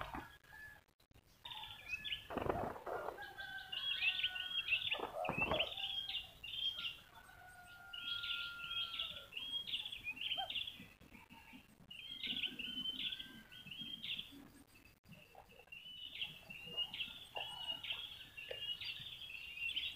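A small bird chirping over and over in quick runs of short high notes. About two and a half and five and a half seconds in come two brief bursts of wing flapping from the spotted doves.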